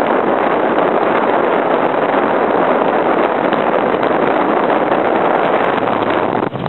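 Steady rushing noise of wind and water heard aboard a moving boat, with a brief dip near the end.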